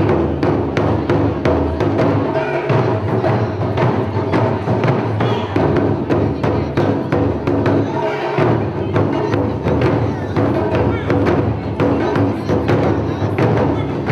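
Background music with a steady percussive beat and sustained pitched instruments.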